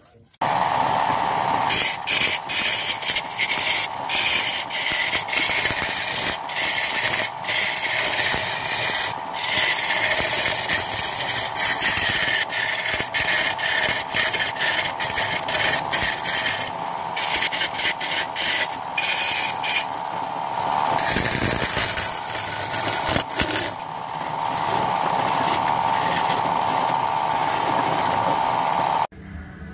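Wood lathe running with a hand-held turning chisel cutting a spinning wooden spindle blank: a steady motor hum under hissing, scraping cuts that break off briefly and start again. It starts about half a second in and stops just before the end.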